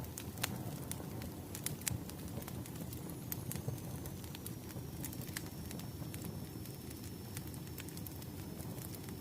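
Burning firewood crackling: a steady low flame noise with frequent sharp, irregular pops and snaps. A faint, high, steady whine comes in about three seconds in.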